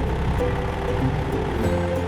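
Background music: held notes changing in steps over a steady bass line.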